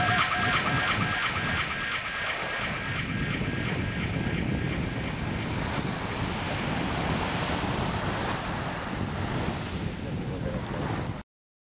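Small waves washing onto a sandy beach, with wind rumbling on the microphone; it cuts off abruptly near the end.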